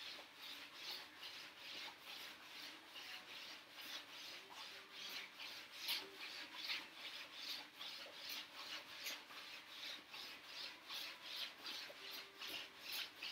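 Feet sliding back and forth on a hardwood floor in a quick, even rhythm, about three swishes a second, as the legs alternate in a sliding mountain-climber exercise.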